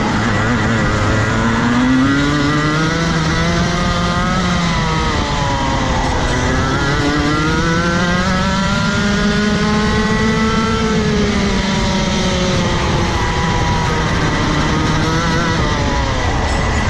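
Rotax Max Evo 125cc two-stroke kart engine at race speed, heard onboard: revs climb on the throttle, dip briefly about six seconds in, climb again to a peak around eleven seconds, then fall away as the driver brakes near the end.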